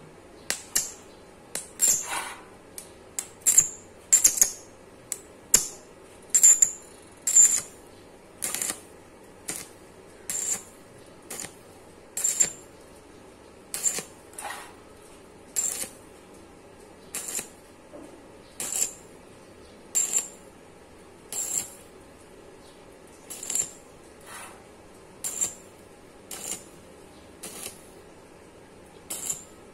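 Stick (arc) welder striking a string of short tack welds on a notched, bent square hollow steel tube: brief crackling bursts of the arc, about one a second, each cut off after a moment.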